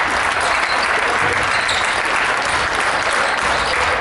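Basketball crowd applauding steadily.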